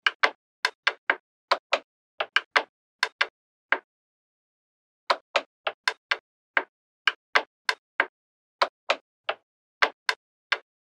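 Small wooden blocks being set down one by one on a wooden board and against each other: a string of short, sharp wooden clacks at irregular intervals, with a pause of about a second and a half before the middle.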